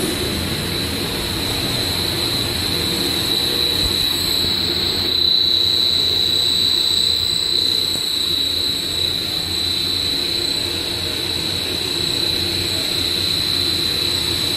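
LAN cable cabling line running: a steady machine drone and rumble with a constant high-pitched whine, which grows stronger for a few seconds midway.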